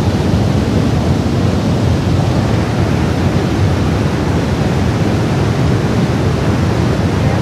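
Floodwater rushing in a torrent: a loud, steady noise, heaviest in the low end.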